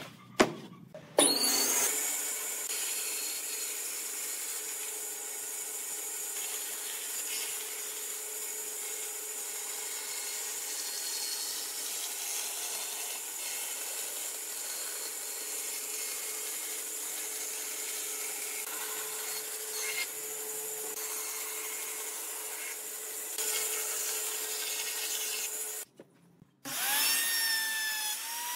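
An electric power tool running steadily while working wood, after a sharp knock at the very start. Near the end it stops for a moment, then is switched on again, its motor whine rising as it spins up.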